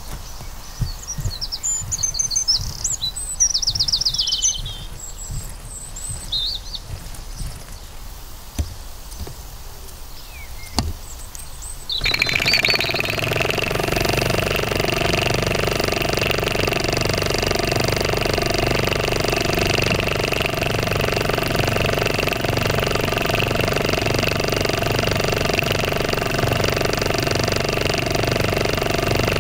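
Birds chirp against a low background. About twelve seconds in, a Mamod SE2 model steam engine starts running at a steady fast beat with a steady hiss, and it keeps an even speed.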